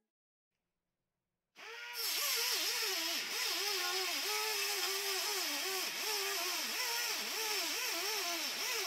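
Pneumatic air saw cutting sheet steel: a hissing whine that starts about a second and a half in, its pitch dipping and recovering again and again, roughly twice a second.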